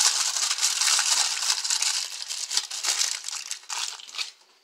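Wrapping being crumpled and crinkled by hand: a dense crackling rustle that tapers off near the end.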